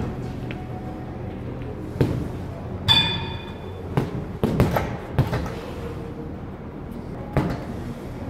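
Gloved punches landing on a hanging heavy bag: a handful of separate thuds spaced a second or two apart, between stretches of footwork. About three seconds in there is a short metallic ring.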